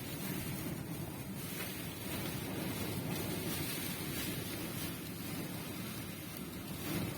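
Dust-storm wind blowing in a steady rushing noise, heaviest in the low range.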